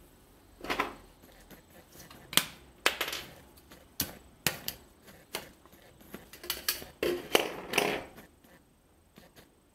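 Clear hard-plastic tube packaging being handled and opened: about a dozen irregular sharp clicks and taps, some with short scraping rubs, as the end cap is pulled off and the thermometer is slid out.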